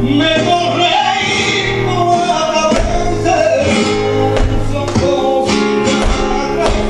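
Flamenco tientos: a singer's long, wavering sung lines over flamenco guitar, with sharp accents now and then.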